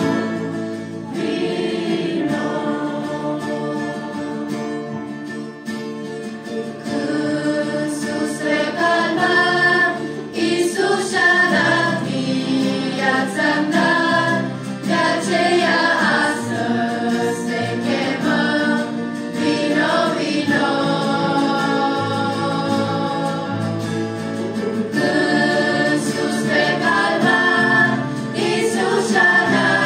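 A choir singing a gospel hymn, several voices together on long held notes.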